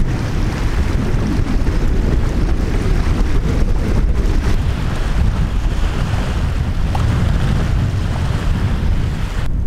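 Wind buffeting the camera microphone: a loud, gusty low rush with a thinner hiss above it.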